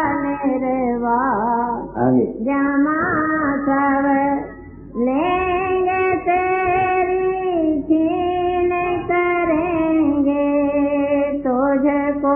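A voice singing a slow devotional hymn in long, held notes. There is a short break about four and a half seconds in.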